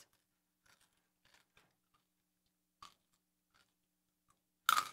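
Faint crunching as a crunchy corn-nut snack is chewed, with scattered single crunches and one clearer crunch about three seconds in. A louder burst of sound comes near the end.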